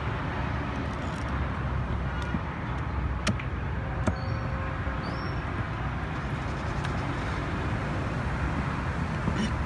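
Steady street-market background noise with traffic. Two sharp knocks about three and four seconds in come from a cleaver chopping fish on a wooden block.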